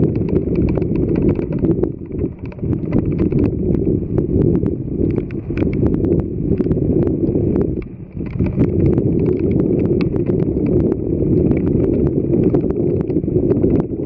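Rain falling, with irregular drops tapping on something close to the microphone over a steady low rumble.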